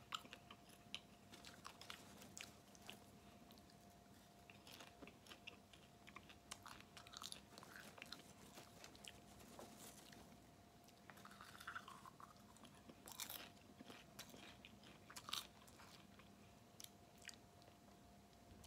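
Faint chewing of butter-flavored stovetop popcorn that is soft and chewy rather than crisp, with scattered small clicks and a few sharper ones in the second half.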